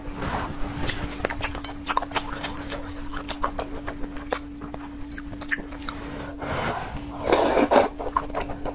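Close-miked eating of spicy noodles: wet mouth clicks and chewing, then a louder slurp of noodles about seven seconds in. A faint steady hum runs underneath.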